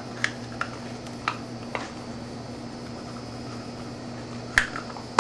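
Light clicks and taps of a throttle-cable cover being fitted back onto a motorcycle fuel-injection throttle body: a few small ticks in the first two seconds and a sharper click near the end, over a steady low hum.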